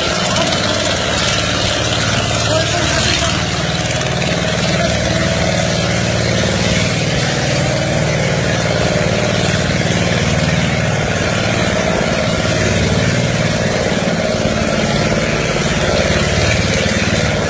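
Engine running steadily at an even pitch, a low hum that never changes speed, heard while moving through floodwater.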